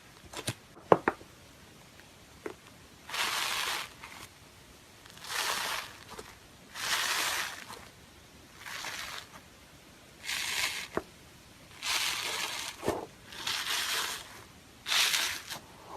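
Slime being squeezed and pressed by hand: a few sharp clicks at first, then a run of about eight wet squishes, each under a second long, every one and a half to two seconds.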